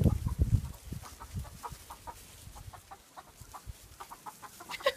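Backyard chickens clucking in short, repeated calls, with a few low thumps at the start.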